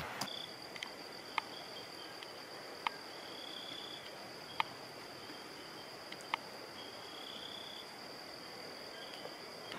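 Night insects calling in dense jungle. One steady, high-pitched trill runs throughout, while shorter trills come and go just beneath it, and a few sharp clicks sound every second and a half or so.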